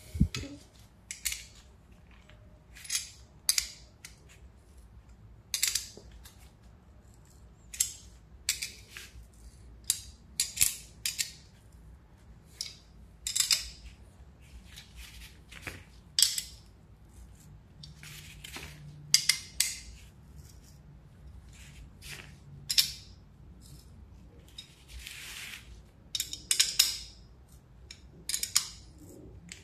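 Metal hand tools and metal parts clinking and rattling in short, sharp bursts every second or two.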